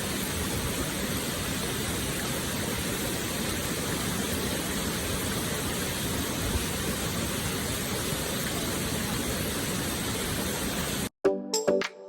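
Steady rushing water of a mountain stream, an even hiss with no change. It cuts off abruptly about 11 seconds in and music starts.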